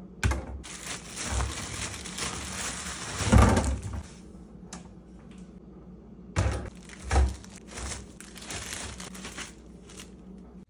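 Plastic bread bags crinkling and rustling, with several dull thuds as a wire-mesh basket and bagged loaves are set down on a wooden countertop. The loudest thud comes about three and a half seconds in, and two more come near the middle.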